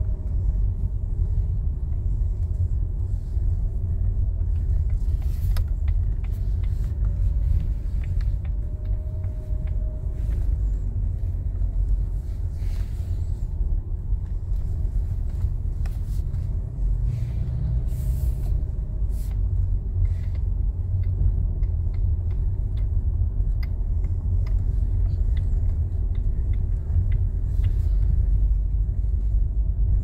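Car engine and tyre noise heard from inside the cabin while driving, a steady low rumble with a faint wavering engine hum and scattered light clicks and rattles.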